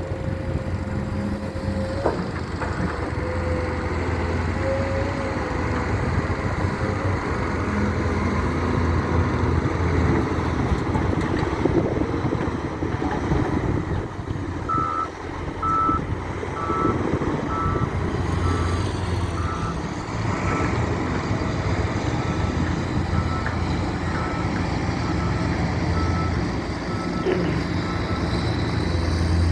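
Heavy diesel construction machinery, a wheel loader and dump truck, running steadily. About halfway through, a reversing alarm starts beeping, a bit more than once a second, and keeps on until near the end.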